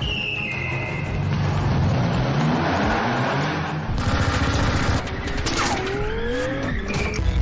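Movie action sound effects: a sports car's engine revving in rising sweeps with tires squealing as it slides, and gunshots in the second half.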